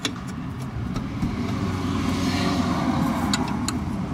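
A motor vehicle running and passing nearby, its sound swelling toward the middle and easing off, with a few sharp clicks over it.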